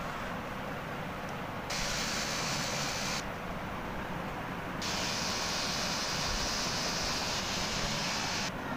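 Handheld electric drill running in two bursts against a gypsum board ceiling edge, fastening the board side pieces to the steel framing: a short run about two seconds in, then a longer run from about five seconds in that cuts off near the end. A steady low hum sits underneath.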